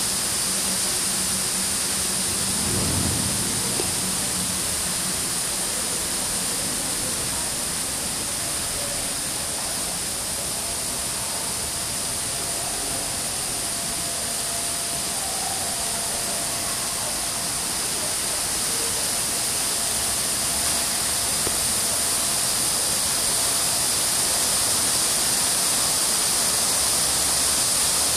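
Steady rushing of water falling down the tiers of a stepped stone cascade fountain, growing a little louder toward the end.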